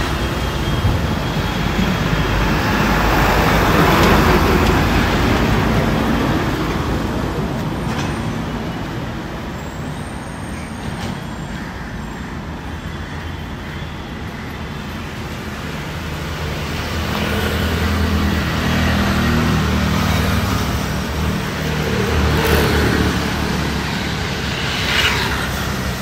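Busy road traffic: motor vehicle engines running close by, the noise swelling and fading as vehicles pass.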